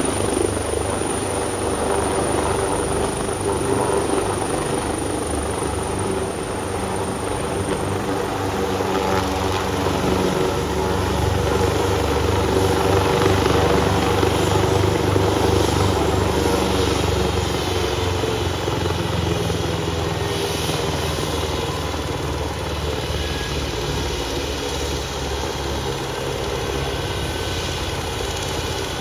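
Medical helicopter running: a steady, fast rotor beat with the whine of its turbine engines, swelling slightly midway.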